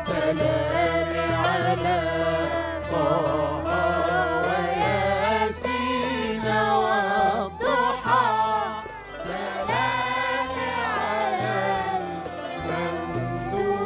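A chorus of men and boys singing an Arabic devotional song in praise of the Prophet (madih), in unison with a gliding, ornamented melody, accompanied by violin over a sustained low bass.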